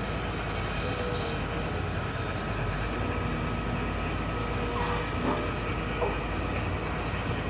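Hydraulic excavator's diesel engine running steadily under working load while the machine digs and dumps spoil, with a thin steady whine over the low drone and a few light knocks about five and six seconds in.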